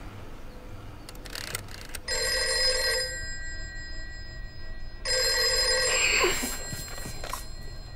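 Desk telephone ringing twice, each ring about a second long and about three seconds apart, followed by a short clatter as the handset is picked up.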